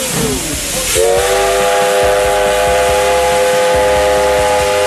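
Steam locomotive's whistle blowing one long, steady blast that starts about a second in and cuts off near the end, over the hiss of escaping steam.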